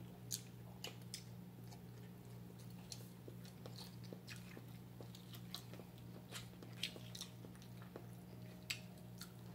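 Faint eating sounds: chewing, with small irregular clicks and smacks from mouths and fingers working rice, over a steady low hum.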